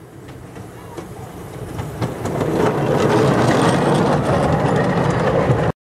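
Miniature steam locomotive passing close by with open passenger coaches, its wheels clattering over the track. The sound builds over the first two seconds and stays loud until it cuts off suddenly near the end.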